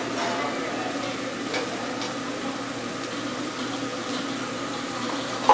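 Rice and chopped vegetables sizzling on a hot teppanyaki griddle, a steady frying hiss, with a single sharp clink right at the end.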